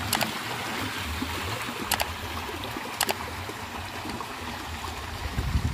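Water running steadily from a pipe and splashing as goat intestines are flushed clean under it, with three sharp clicks in the first three seconds.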